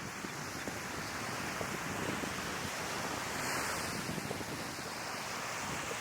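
Sea waves breaking and washing on the shore, the wash swelling about two to three seconds in, with wind rumbling on the microphone.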